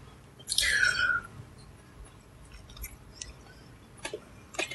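A short hiss falling in pitch about half a second in, then scattered faint clicks and mouth sounds of chewing.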